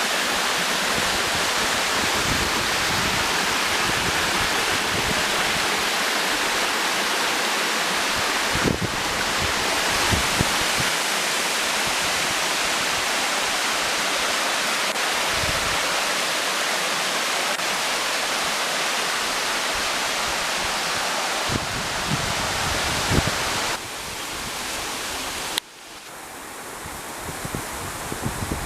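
Steady, even rush of falling water from a tall waterfall. Near the end it cuts off suddenly to a quieter rustle of wind and leaves.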